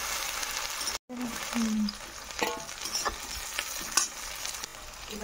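Onion-garlic-ginger masala paste, then chopped tomatoes, sizzling in hot oil in a metal wok while a spatula stirs and scrapes, tapping against the pan a few times. A brief dead gap about a second in, then a short low hum just after it.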